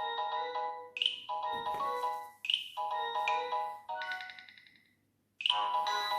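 Nokia 6600 polyphonic ringtone playing: a short phrase of chiming chords, each opening with a high chirp, repeated about every second and a quarter and fading out. After a brief gap near the end another run of notes begins.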